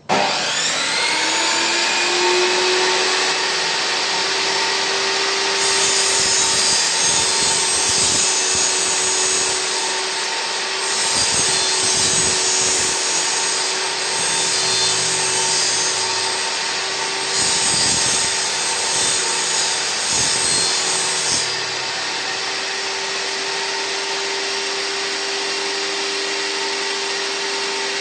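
Electric table saw switched on, its motor whining up to speed and then running steadily. Three times the blade cuts through a workpiece for a few seconds each, adding a harsh, hissing saw noise over the motor, before it runs free again.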